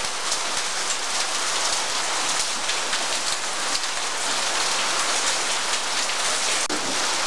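Rain falling steadily onto a wet concrete floor, drops splashing on the water film that covers it.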